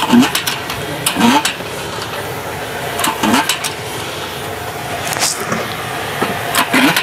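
Manual lever-action french fry cutter pressing raw potatoes through its grid blade: about five separate strokes, each a sharp crunch and clack as the potato is forced through and the lever comes down, over a steady background noise.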